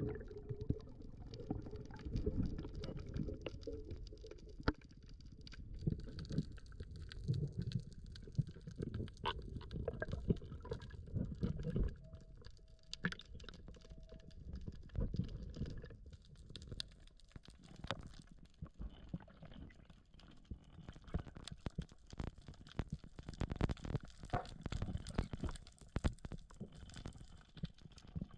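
Underwater sound picked up through a camera housing: low, uneven rumbling of moving water with many scattered faint clicks.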